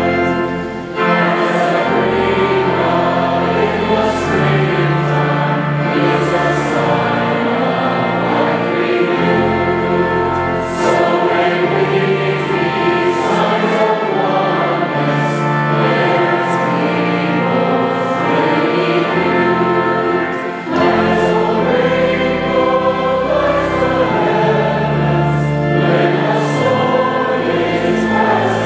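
A congregation singing a hymn together over instrumental accompaniment. The singing breaks off briefly between phrases, about every ten seconds.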